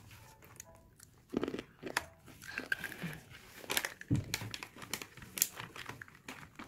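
Plastic snack packet crinkling in a child's hands, with crunching as he chews a piece of the snack. Irregular short crackles throughout.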